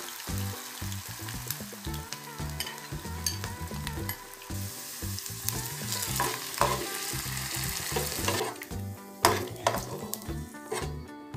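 Diced potatoes sizzling as they fry in oil in a nonstick pan, stirred and scooped with a metal spoon, with many sharp clicks and scrapes of the spoon against the pan. The loudest knock comes about nine seconds in.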